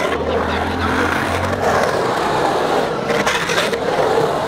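Skateboard wheels rolling and carving on the concrete of a skate bowl, a steady rumble with a few faint knocks.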